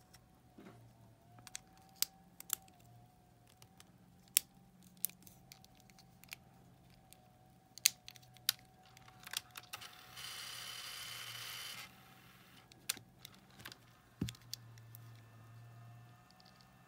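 Small plastic clicks and taps as the two halves of a Sony cassette player's wired remote-control case are handled and pressed together, with a steady hiss of about two seconds past the middle and a single knock soon after.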